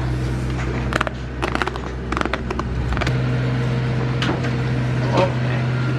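Steady low mechanical hum of a machine running, whose note shifts about halfway through. Over it, a run of sharp crunching clicks about a second in as a goat chews a treat taken from a hand.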